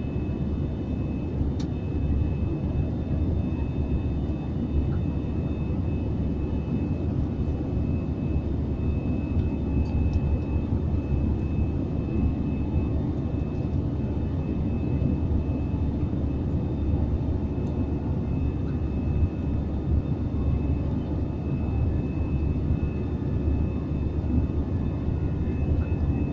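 Steady drone of a passenger airliner climbing shortly after takeoff, heard from inside the cabin: a deep, even roar of engines and airflow with a thin, steady high whine over it.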